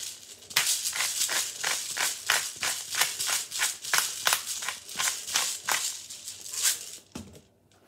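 Hand-twisted pepper grinder grinding black peppercorns: a quick, even run of short rasping strokes, several a second, that stops about seven seconds in.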